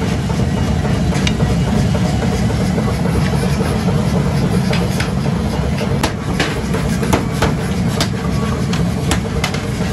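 Blacksmith's forge furnace running with a steady low rumble, with scattered sharp clicks throughout.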